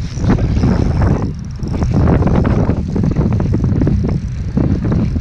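Strong wind buffeting the camera's microphone, a loud low rumble that surges in gusts over choppy water.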